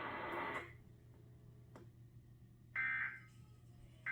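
Emergency Alert System end-of-message data bursts: short, harsh, buzzy digital chirps, one about three seconds in and the next starting right at the end, part of a set of three sent a little over a second apart to close the alert. Before them, the broadcast audio cuts off less than a second in.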